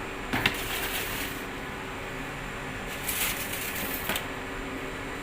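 A steady hum with a few short clicks and rustles of handling: about half a second in, around three seconds in and again near four seconds in.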